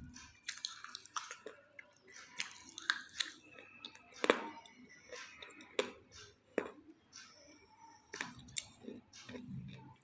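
A person biting and chewing pieces of half-roasted clay pot close to the microphone: irregular dry crunches and crackles, the loudest a little over four seconds in.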